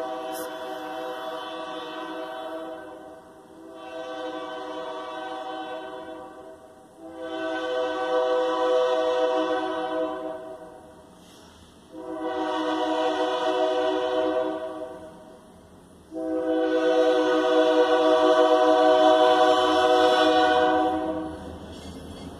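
Diesel locomotive air horn sounding a series of long blasts for a grade crossing as the train approaches. One blast is already sounding at the start, followed by four more with short gaps between them. They grow louder as the train nears, and the last is the longest and loudest, ending about a second before the end.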